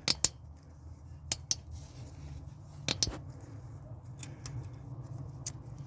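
Sharp metallic clicks and ticks at uneven intervals as a tap extractor is worked back and forth on a broken tap stuck in an 8.3 Cummins cylinder head, trying to break the chip load loose. A steady low hum runs underneath.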